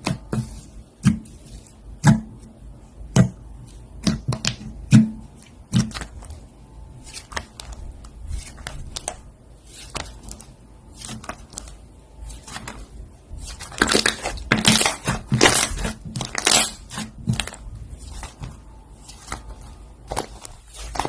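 Slime being pressed and squeezed by hand, giving a string of sharp pops and clicks about once a second, then a denser run of crackling about two-thirds of the way through.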